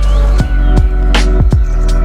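Electronic background music: sustained synth chords over a heavy bass, with deep kick-drum hits that drop in pitch and a sharp snare-like hit about a second in.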